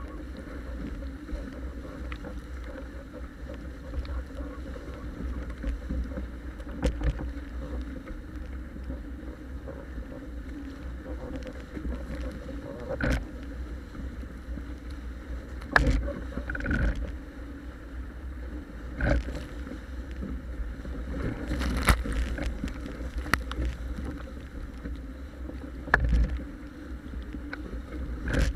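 Paper Tiger catamaran sailing fast through chop: a steady rush of water along the hulls, broken every few seconds by sharp slaps of waves and spray hitting the hull and deck.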